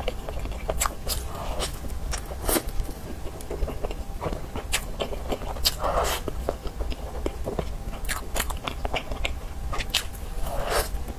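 Close-miked mouth sounds of a person biting into and chewing a soft custard-filled pastry: wet smacks and many small scattered clicks.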